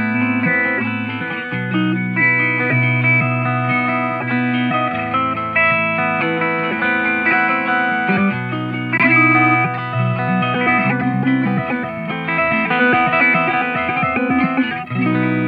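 Electric guitar played through an Old Blood Noise Endeavors Dweller phase-repeater/delay pedal, its repeats layering into many overlapping sustained notes.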